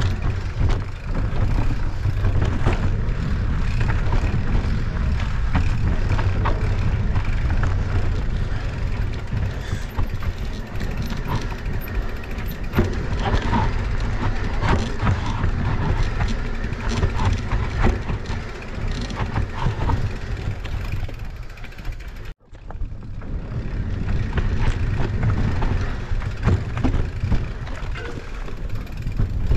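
Mountain bike being ridden over rough ground: a steady low rumble of wind and rolling noise, with frequent clicks and rattles from the bike. The sound cuts out for a split second about three-quarters of the way through.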